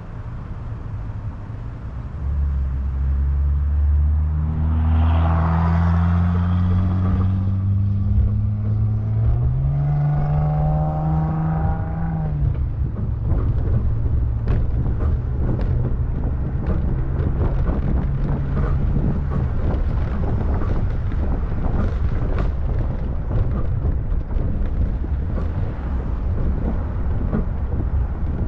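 Road noise from a boat being towed on a trailer: a vehicle engine's rising, gliding pitch as it accelerates through the first half, then steady rumble with wind buffeting the camera microphone.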